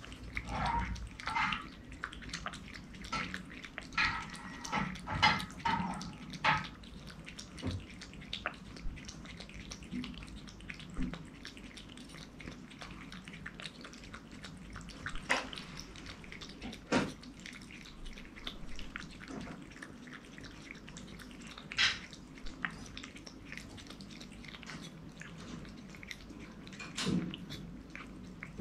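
A cat eating a snack from a ceramic bowl, making small wet clicking and smacking mouth sounds as it licks and chews. The sounds come thick and fast for about the first seven seconds, then turn sparse with an occasional louder click.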